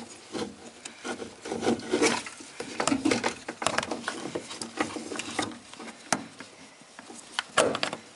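Fuel pump assembly being lowered into the fuel tank, its metal flange plate scraping and rubbing into place on the opening. Irregular small clicks and knocks go on throughout as it is shifted about by hand.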